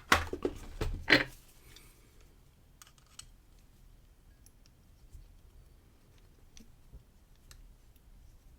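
Small metal clicks and knocks from handling a dimple lock cylinder while working at its squeeze-on circlip. A few sharp knocks come in the first second or so, then faint scattered ticks.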